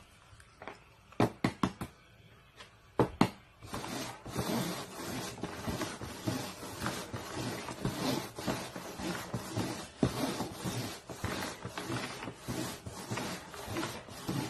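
Upturned cups knocked down and slid around on a cardboard box top as they are shuffled: a few sharp knocks in the first three seconds, then a steady run of scraping and light tapping.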